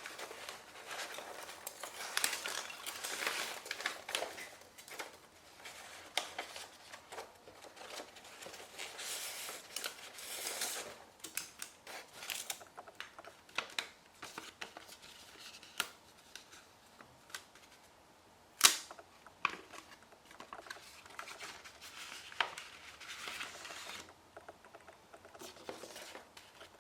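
Packaging being handled and opened by hand: rustling and tearing of paper and tape with many light clicks and taps, and one sharp click about two-thirds of the way through.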